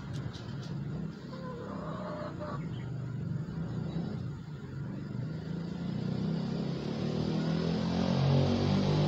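An engine running steadily, growing louder toward the end.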